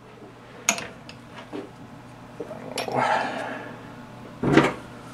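Steel-on-steel clinks and knocks as a 1-2-3 block is lifted off a lathe's quick-change tool post and a wrench is brought to its nut: a sharp click about a second in, a brief scrape around three seconds, and a heavier clank near the end.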